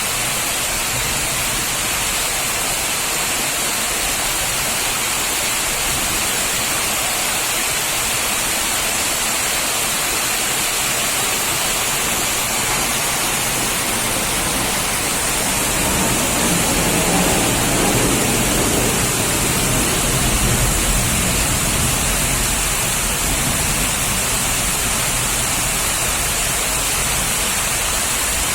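Heavy rain falling steadily, a dense hiss. About halfway through, a low rumble swells for several seconds and fades.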